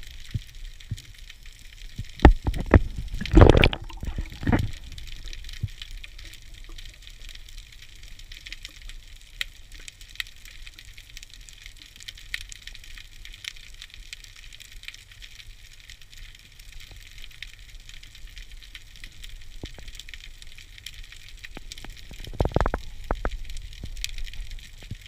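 Underwater sound inside a camera housing: a faint steady crackle with scattered sharp ticks, and two spells of louder rushing and knocking from the diver's movement, about two to four seconds in and again about twenty-two seconds in.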